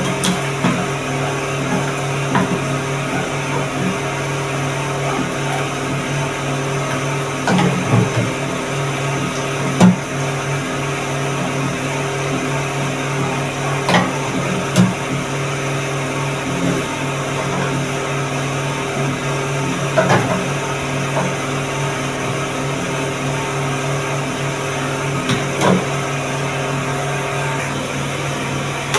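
A steady mechanical hum with several constant low tones, broken by a few short light knocks here and there.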